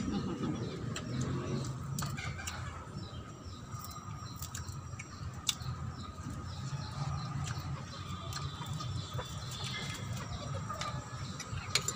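Chickens clucking in the background, over a steady faint high tone, with a few small clicks.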